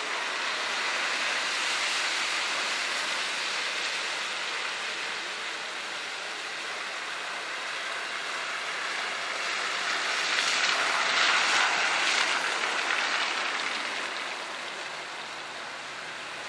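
Steady hiss of water on a flooded skid pad: car tyres swishing through standing water and water spraying. It swells for a few seconds past the middle, then eases off.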